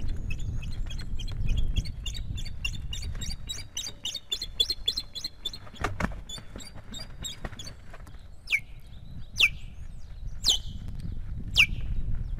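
Ospreys calling in alarm at an intruder on the nest: a fast run of short, high chirps, then four loud calls that slide downward, about a second apart. A sharp thump comes about halfway through, with a low rumble of wing movement close by underneath.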